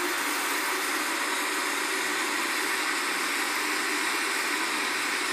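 Countertop electric blender running steadily, its motor churning a liquid cake batter of oil, milk, eggs and sugar, then switched off abruptly at the very end.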